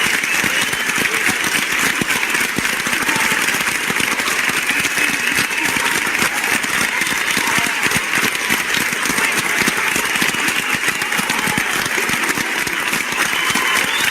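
Crowd applause: dense, steady clapping from many hands, a recorded crowd sound-effect sample.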